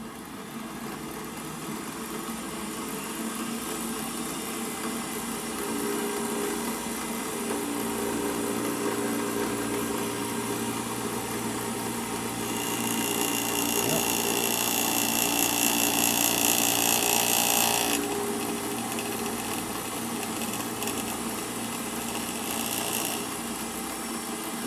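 Milling machine running while its cutter takes a light pass of about ten thousandths off the edge of a square hole in a tube. The motor hum is steady. A loud high-pitched cutting hiss comes in about halfway through, stops abruptly around three-quarters in, and returns more weakly for a few seconds.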